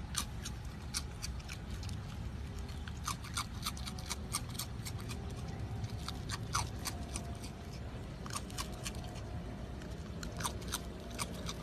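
Raccoon chewing crunchy ring cereal: quick, irregular sharp crunches in clusters, with short pauses between.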